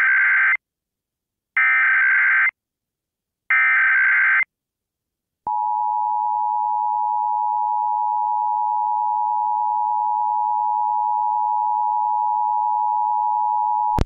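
Emergency Alert System test tones on FM radio: three short buzzing data bursts of the SAME header, each about a second long and a second apart. From about five seconds in comes the steady two-tone attention signal.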